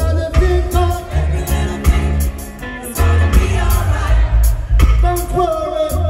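Live reggae band playing, with a male lead vocalist singing over a pulsing deep bass line and drums.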